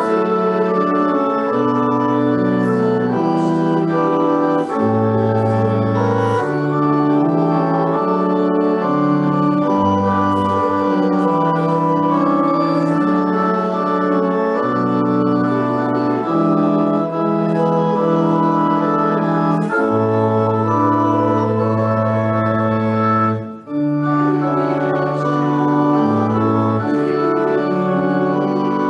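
Organ playing slow, sustained chords, the notes held at an even level and changing in steps. About three-quarters of the way through there is a short break between phrases.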